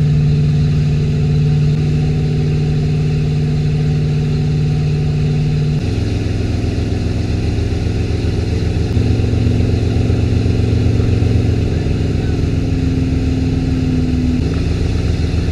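Wake boat's engine running steadily while towing a wakeboarder, with water churning in the wake. Held low tones shift in pitch in steps a few times over the rushing noise.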